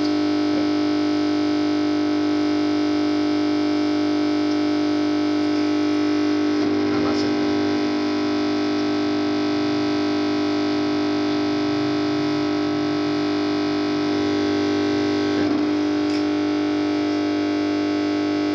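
Loud steady electrical hum with many overtones, unchanging throughout, with faint brief handling noises about seven seconds in and again near the fifteen-second mark.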